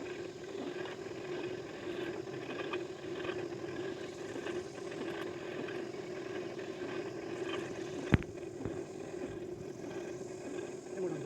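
A machine running with a steady hum, with faint scattered clicks and one sharp knock about eight seconds in.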